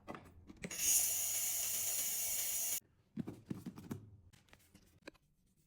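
A steady, loud hissing rasp lasting about two seconds that cuts off sharply, followed by a few soft knocks and rustles of handling.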